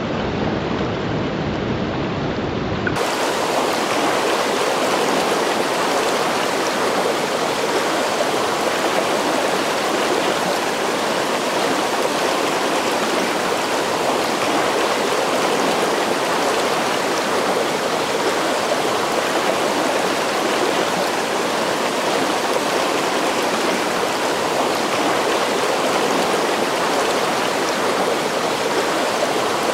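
Fast-flowing creek water rushing over rocks and riffles, a steady even rush. About three seconds in it switches abruptly from a duller sound to a brighter, fuller rush.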